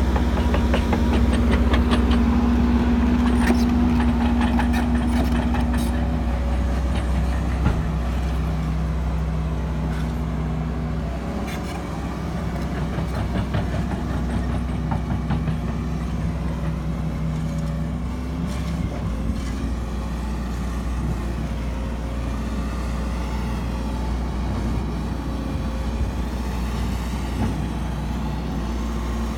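Hidromek HMK 140 crawler excavator's diesel engine running steadily as the machine works and tracks over loose dirt, its note dropping about six seconds in. A scatter of sharp knocks sounds in the first several seconds.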